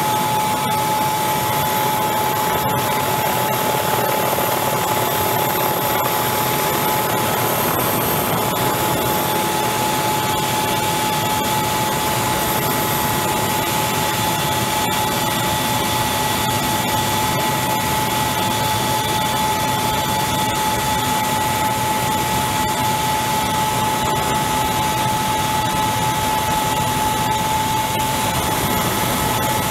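Hind attack helicopter in flight heard on board: a steady turbine whine with a high constant tone over the even rush of engines and rotor.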